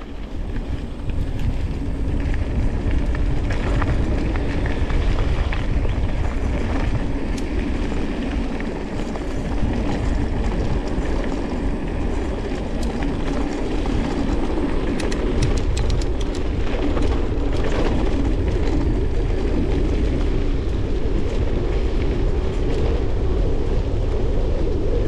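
Mountain bike ridden along a woodland trail, heard from a camera on the bike or rider: a steady rumble of tyres over dirt and rocks, with the bike rattling and a run of sharp clicks and knocks about two-thirds of the way through.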